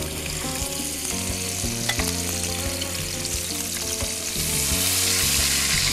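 Spice paste and whole spices sizzling in hot oil in a frying pan with a splash of water added, stirred with a wooden spatula. The sizzle grows louder about four seconds in, and there are a couple of light knocks.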